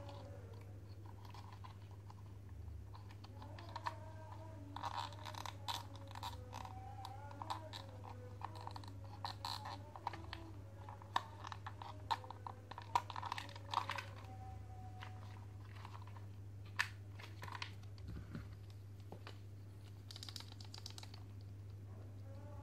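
Hard plastic parts of a toy tracked excavator clicking and rattling as they are handled and pried apart, with the clicks coming thickest in the middle and a few sharper single snaps later, over a steady low hum.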